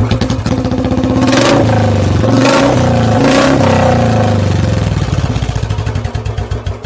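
Royal Enfield Standard 350's single-cylinder engine running at the exhaust with a quick, even thump. It is revved briefly three times, about one and a half, two and a half and three and a half seconds in, and settles back to idle between and after.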